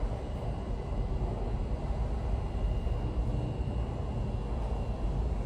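R46 subway train running with a steady low rumble and a faint, steady high whine.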